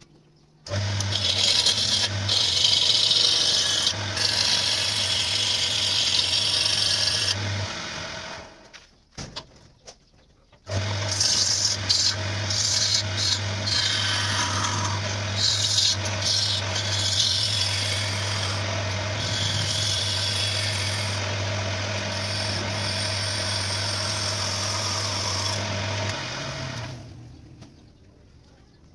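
Homemade wood lathe running, with a steady motor hum under the rough scraping hiss of a hand-held gouge cutting into a spinning wooden bowl blank. The sound stops abruptly about eight seconds in, starts again abruptly near eleven seconds, and fades out near the end.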